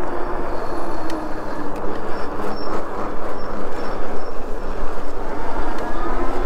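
Steady rushing noise of a Himiway Zebra fat-tire e-bike under way, with a faint whine from its 750 W rear hub motor that drifts in pitch and climbs near the end.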